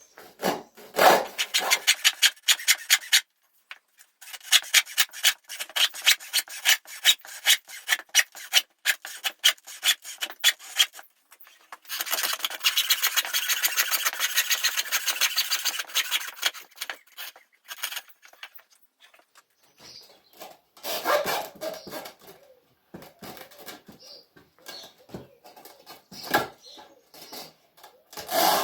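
Hand sawing through high-pressure hydraulic hose: quick back-and-forth rasping strokes in spells with short pauses, thinning to scattered strokes in the last third.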